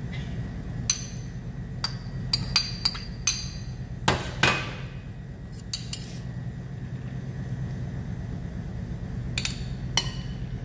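Metal fork and spoon clinking and scraping against a ceramic bowl and a glass mixing bowl as raisins are scraped in and the macaroni salad is tossed: irregular sharp clinks, loudest a little past four seconds in, over a steady low hum.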